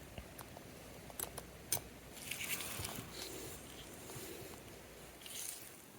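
Faint handling sounds from working on a small mechanical watch movement: a few sharp little clicks and taps of tools and parts, about a second in and again shortly after, with soft rustling between.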